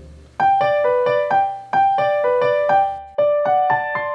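Music: a piano-like keyboard playing a quick melody of separate ringing notes, several a second, starting about half a second in.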